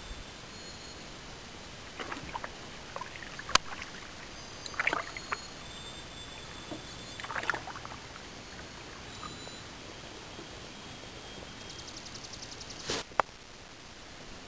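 Canoe paddle strokes on calm lake water: a few short dips and drips a couple of seconds apart, with a sharp knock about three and a half seconds in and another near the end, over a steady hiss.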